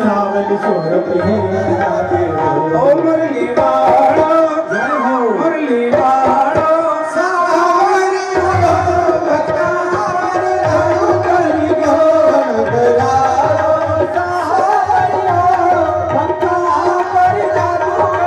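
Live devotional bhajan music: steady hand-drum beats under a wavering sung melody, played for dancing devotees.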